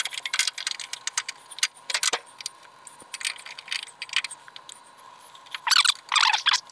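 Irregular light metallic clicks and rattles of a screwdriver and a wiring connector being handled against a front-loading washer's front panel, with a quicker run of clicks near the end.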